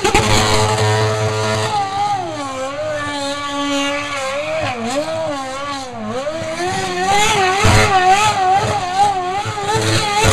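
Renault Formula One car's V8 engine at high revs while spinning its rear tyres in donuts, the revs rising and falling constantly as the throttle is worked. From about seven seconds in the pitch wavers quickly, about two to three times a second, and it gets louder near the end.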